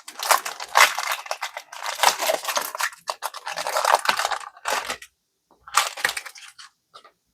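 Foil trading-card booster pack being torn open and crumpled, in four crinkly bursts with short gaps.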